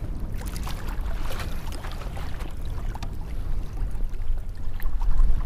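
Wind rumbling on the microphone and choppy water lapping at a kayak hull, with scattered small clicks and knocks as the rod and reel are handled.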